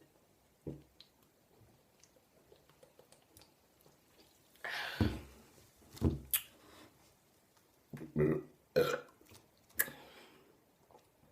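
A woman burping several times in a row after drinking the carbonated soft drink Sprite: a short burp near the start, a longer one about five seconds in, then quick ones close together toward the end.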